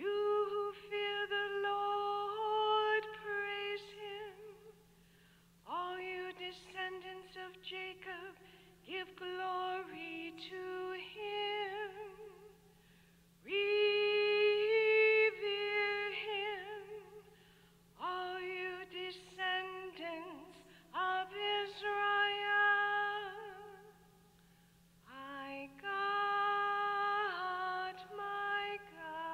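A woman singing solo, most likely a cantor chanting the responsorial psalm, in sustained sung phrases of a few seconds each separated by short pauses.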